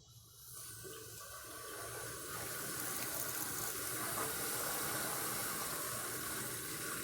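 Water rushing into a toilet tank through its fill valve as the supply is turned on. It starts about half a second in, grows louder over the next two seconds, then runs steadily as the tank refills.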